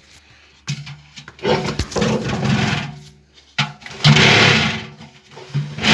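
LG washing machine drum and motor running in four bursts of about a second each with short pauses between, a low hum under a rattling vibration: the drum vibration the owner is asking about.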